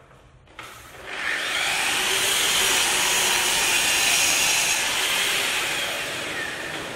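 Sliding mitre saw starting up and cutting through a timber floorboard, with a dust extractor drawing through its hose. The noise comes in about a second in and eases off after about five seconds, leaving a steady rushing hiss from the extractor.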